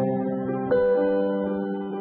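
Background music of held, sustained chords, with a new chord coming in under a second in.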